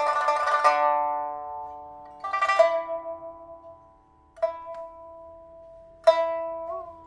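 A pipa, a 1980s Shanghai-made instrument of cochin rosewood with ivory fittings, being test-played after fitting a new soundboard and new frets. A rapid tremolo run stops just under a second in. Three single plucked notes follow, each left to ring and fade, and the last is bent so its pitch wavers near the end.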